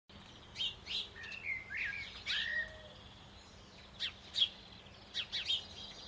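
Small songbirds calling: short sharp chirps and a few longer, downward-sliding notes, coming in three clusters with short gaps between.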